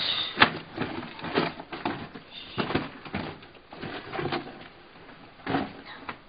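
Irregular light knocks, clicks and rustles of someone moving about and handling things, about eight separate sounds spread unevenly.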